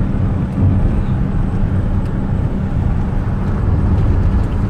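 Steady low rumble of engine and road noise inside the cab of a small flatbed truck driving along a road.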